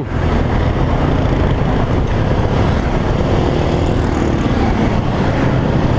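Motorcycle under way at road speed: the engine's low, steady running mixed with wind rushing over the rider's microphone.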